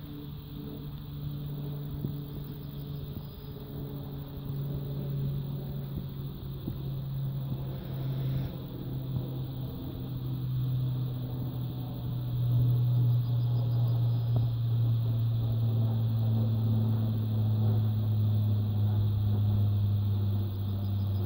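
Low, steady engine hum that grows louder through the second half, its pitch sinking slightly.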